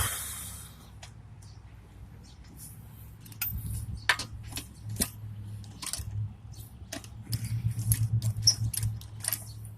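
A lug wrench being worked on a car wheel's lug nuts: a loud metallic clank at the start, then scattered clicks and clinks of metal on metal that come thick and fast for a couple of seconds near the end.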